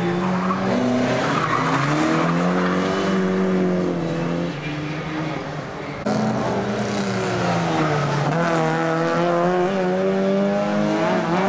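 Historic rally car engines revving hard, pitch climbing and dropping again and again through gear changes, with tyres squealing at times. The sound cuts abruptly about halfway through from one car to another.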